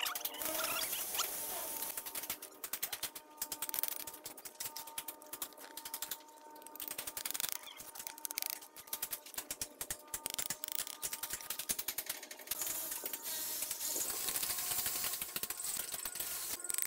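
Bricklaying by hand: a steel trowel scraping and tapping wet cement mortar and red clay bricks, making a dense run of short scrapes and clicks.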